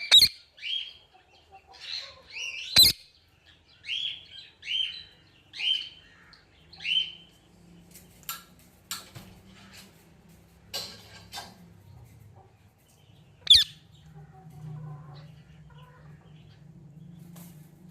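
Ringneck parrot calling: a run of short, repeated squawks about once a second for the first seven seconds, with a few sharp, loud clicks among them. After that come only scattered short calls over a low hum.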